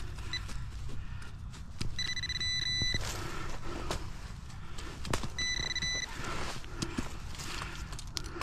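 A handheld metal-detecting pinpointer sounds two steady high beeps of about a second each, about two and five and a half seconds in, signalling the buried coin in the hole. Between the beeps comes scraping and crunching as a hand digger works loose soil and leaf litter.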